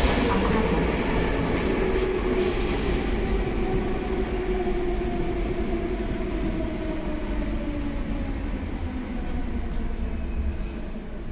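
Athens Metro Line 2 train heard from inside the carriage: rumbling running noise with a motor whine that falls slowly in pitch while the overall noise gradually eases, as the train slows down.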